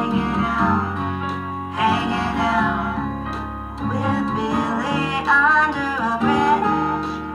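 Song music: acoustic guitar accompaniment with a sung melody line over it.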